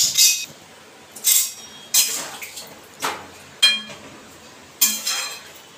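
Steel ladle stirring vegetables in water in a steel kadai, knocking against the pan about seven times at uneven intervals, each clink ringing briefly.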